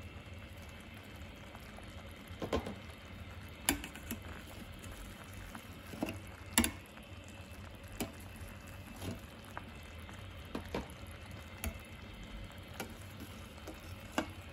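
Raspberry-and-currant jam bubbling in a stainless steel pot while a perforated metal skimmer is worked through the foam. Irregular sharp clicks of the skimmer against the pot come about once a second, the loudest a little over halfway through.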